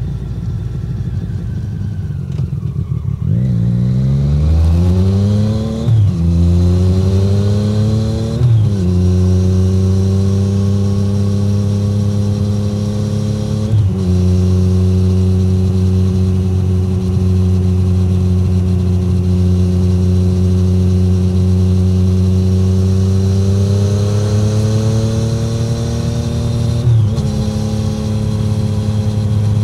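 2017 Triumph Street Triple 765R's inline three-cylinder engine through an SC-Project SC1-R titanium exhaust, heard without wind noise. It rumbles low at first, then pulls hard with rising revs, changing up a gear about 6, 8½ and 14 seconds in. It then runs at a steady cruise, with revs creeping up and one more gear change near the end.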